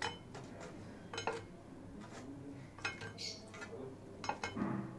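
Crisp fried potato pastry twists set down one by one on a ceramic plate: a handful of light, scattered clicks and taps.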